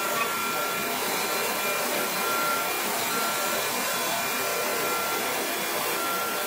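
CNC router spindle running with its bit cutting wooden parts: a steady rushing hiss with a high whine that comes and goes.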